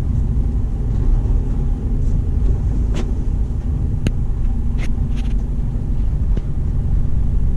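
Steady low rumble of a Mercedes-Benz truck's engine and road noise heard inside the cab as it creeps along in traffic, with a few scattered sharp clicks or knocks from the cab around the middle.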